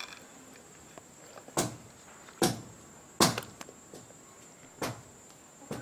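An otter eating soft orange food from a metal bowl: a handful of short, sharp crunching bites at uneven intervals, the loudest about three seconds in.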